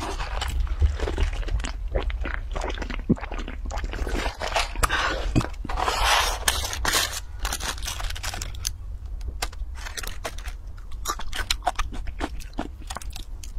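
Paper fast-food packaging being handled: a paper drink cup moved, a cardboard burger box opened and a paper burger wrapper crinkled. It gives many small taps and crackles, with the densest rustling a little before the middle.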